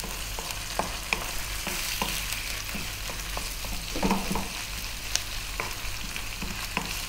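Thin strips of raw chicken breast sizzling in hot oil with onion, garlic and ginger in a nonstick wok over high heat, while a wooden spoon scrapes and taps against the pan in stirring; the stirring is loudest about four seconds in.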